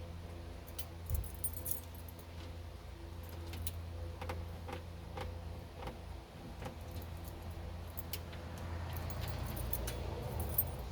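Keys jangling on their ring with small metallic clicks and clinks as the key is turned and a paper clip is worked into the ignition lock cylinder to press its release pin. Irregular clicks, with sharper clinks about a second in and near the end, over a steady low hum.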